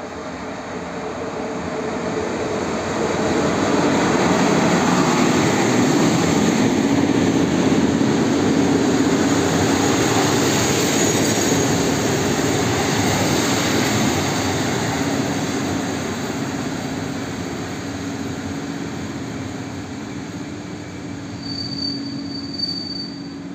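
An EP07 electric locomotive and its passenger coaches rolling into the station, wheels rumbling on the rails, swelling as the train passes and fading as it slows. Near the end a short high squeal comes as the train draws to a stop.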